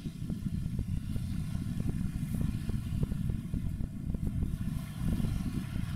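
Low, uneven rumble of a harbour tug's engines carrying across the water, with faint irregular ticking over it.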